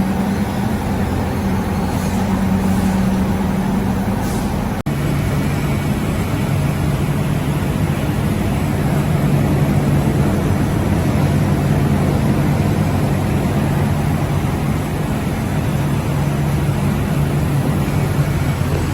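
Dog-treat production machinery running with a steady hum and whir. About five seconds in the sound cuts out for an instant and the hum comes back lower in pitch.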